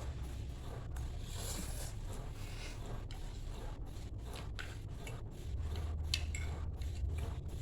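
Eating noodles: light clicks and scrapes of cutlery against a dish, with chewing. A steady low rumble runs underneath and grows louder past halfway.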